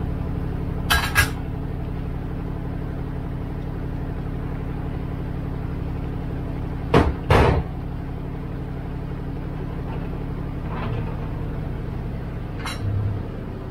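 Sharp knocks of a utensil against a cooking pot, in two quick pairs about a second in and about seven seconds in, over a steady low hum.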